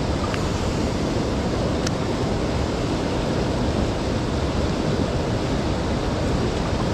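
River rapids rushing, a steady, unbroken roar of water.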